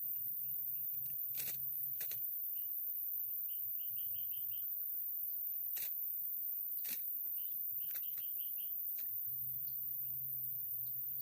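Small birds chirping in quick runs of short notes over a steady high hiss, with about six sharp clicks scattered through.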